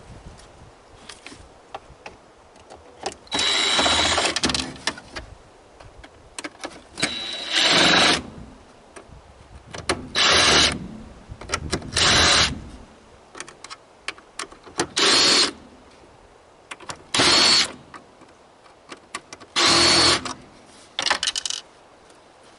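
Power drill-driver backing screws out of a washing machine's sheet-metal panel, whirring in about seven short runs of half a second to a second and a half each, with quieter handling and clinks between.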